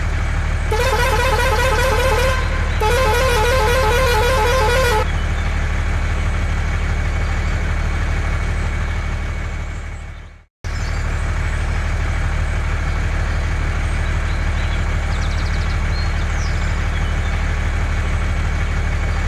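Two warbling vehicle-horn blasts, each about two seconds long, over a steady low hum. The hum fades out about halfway through, drops to silence for a moment, then cuts straight back in.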